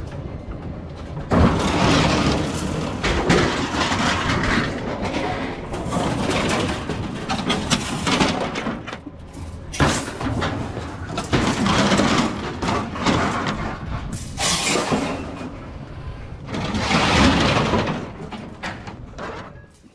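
Scrap metal clattering and crashing in a run of irregular bangs as loose pieces are unloaded and thrown onto a pile.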